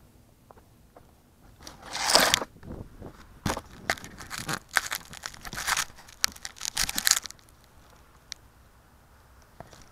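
Handling noise picked up by the glider's onboard camera: a hand gripping the fuselage and rubbing against the airframe by the microphone as the plane is lifted, a run of crinkly scrapes and knocks for about five seconds, then quiet with the motor still off.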